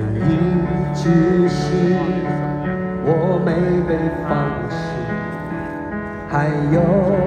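Live concert performance of a slow pop ballad: a male voice sings sustained lines with vibrato over steady band accompaniment, the vocal phrases entering about half a second in, around three seconds, and again near the end.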